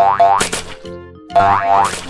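Bouncy children's background music with springy, rising boing-like notes, and a crash about half a second in and again near the end.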